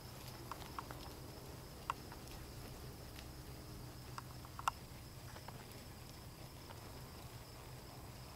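A dun mare walking under saddle on arena dirt: faint, uneven hoof falls with a few light, sharp clicks, over a faint steady high tone.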